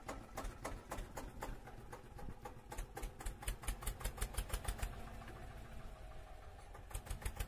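Tractor engine chugging, a rapid even run of pulses about seven a second.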